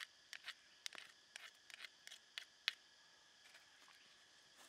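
Light, irregular clicks and taps of a metal spoon scraping thick sauce onto a pan of noodles, most of them in the first three seconds, with one sharper tick a little before three seconds. A faint, steady high hiss lies underneath.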